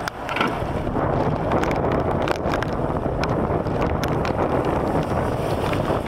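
Gusty wind buffeting the microphone with rain falling, over the hiss of car tyres on a wet road.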